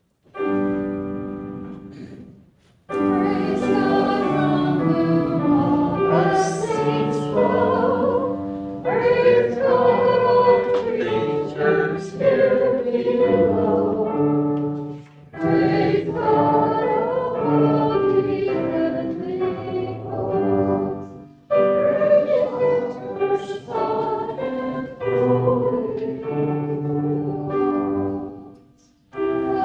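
A congregation singing a hymn with accompaniment. It opens with a held chord that fades away, and the singing starts about three seconds in, with short breaks between lines.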